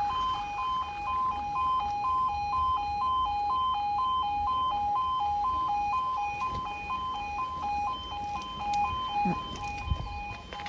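Apollo E2S level-crossing sounders giving the two-tone warning alarm, a high note and a low note alternating about twice a second, while the crossing is closed for an approaching train. A brief low thump sounds near the end.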